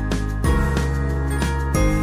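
Background music: a light melody of short struck notes, about three a second, over held bass notes that change about every second and a half.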